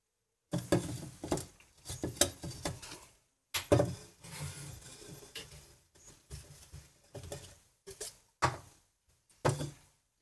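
Kitchen handling noises: a cardboard carton of whipping cream and a plastic shaker cup being picked up and set down on a stainless steel counter. A run of knocks and clicks with rustling between them.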